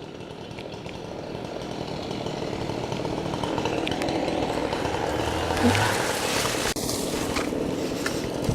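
Chainsaws running as felled trees are bucked into firewood rounds, a steady drone that grows gradually louder.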